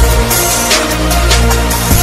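Loud electronic background music with heavy bass and a steady drum beat.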